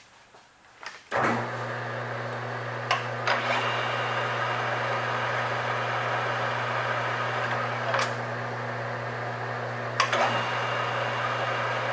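Metal lathe starting up about a second in and then running steadily, a constant motor hum, with a few sharp ticks at irregular intervals.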